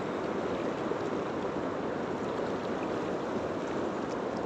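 Fast river current rushing over a rocky riffle close to the microphone, a steady, even rush of water.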